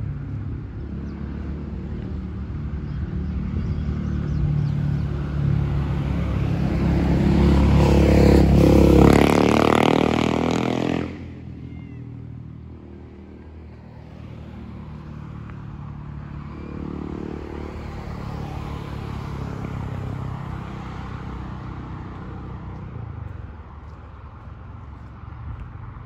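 Street traffic: a motor vehicle's engine grows louder as it approaches and passes, loudest about nine seconds in, then drops off sharply. A second, fainter vehicle passes later, over a low rumble of traffic throughout.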